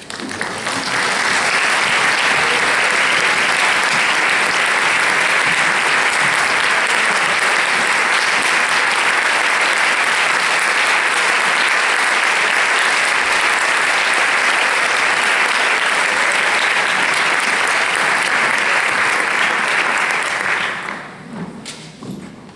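Concert audience applauding, a dense steady clapping that swells up within the first second, holds even, and dies away over the last two seconds or so.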